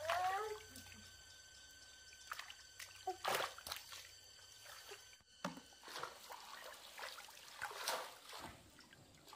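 Water trickling and splashing in short, scattered bursts, with a brief rising pitched sound at the very start.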